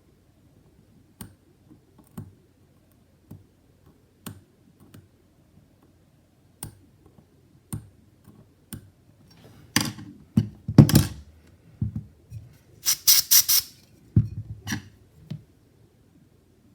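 A small hand tool picking and scraping at the cracked glass of an iPhone 11 rear camera lens: scattered light clicks and taps, then louder scraping and crunching strokes past the middle, with a quick run of four or five sharp scrapes near the end.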